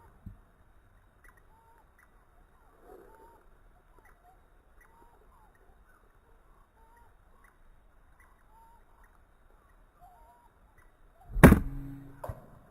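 Faint, short bird calls repeat every second or so. About eleven and a half seconds in comes one loud sharp crack with a brief ringing hum, an air rifle shot, followed by a smaller click.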